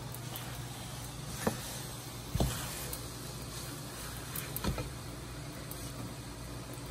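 A steady low hum with three brief sharp knocks, about one and a half, two and a half and nearly five seconds in: a cooking utensil knocking against the pan of pancit.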